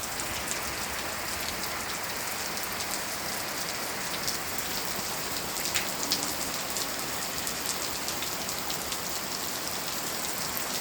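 Steady rain shower: an even hiss of falling rain with scattered sharp ticks of drops striking nearby surfaces.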